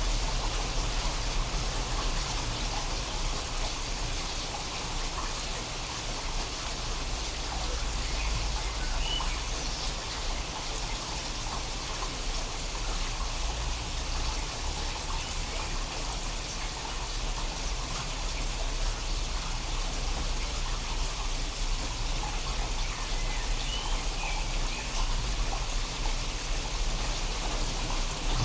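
Steady rain falling, a dense, even patter of drops, with a couple of faint bird chirps.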